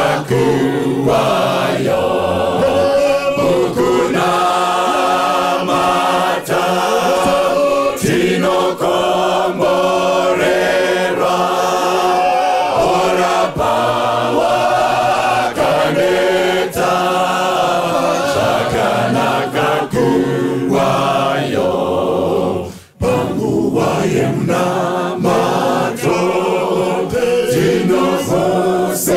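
Church choir singing a gospel song, with lead voices on microphones over the full choir. The sound drops out for a moment about three quarters of the way through.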